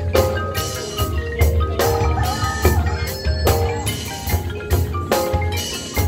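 Marching band music with the front ensemble's marimbas and other mallet percussion prominent, struck in a steady rhythm of several notes a second over a sustained low bass.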